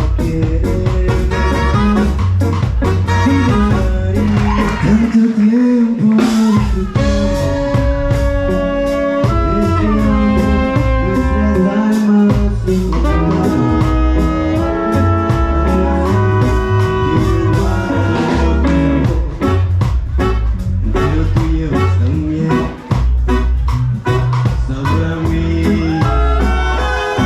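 A live band playing, led by a horn section that includes saxophone holding sustained harmony lines that step from chord to chord over bass and a steady drum beat, with a voice singing briefly near the start.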